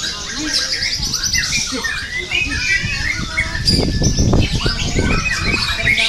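Several songbirds singing at once, with overlapping chirps and rapid high trills. Caged contest songbirds of the kind that a white-rumped shama is trained to face. A low rumbling noise runs under the song from about the middle of the clip to near the end.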